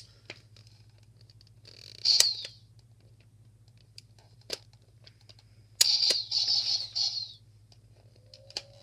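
Toys and packaging being handled: scattered sharp clicks with two louder rustling bursts, one about two seconds in and a longer one around six to seven seconds, over a steady low hum.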